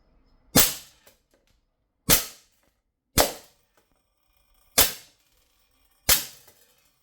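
Five shots from a Sig Sauer 1911-style CO2 air pistol, each a sharp crack that dies away quickly, fired at an uneven pace about a second or a second and a half apart.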